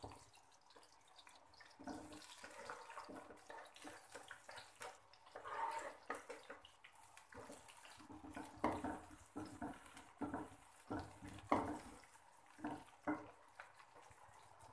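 Sliced onions sizzling in hot cooking oil in a kadhai, a faint steady hiss, broken by a dozen or so irregular knocks and taps, the loudest about two-thirds of the way through.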